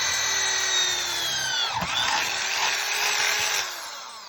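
Electric drill running at speed while bolting a fitting to a desk. It slows and picks up again about halfway through, then winds down near the end as the trigger is let go.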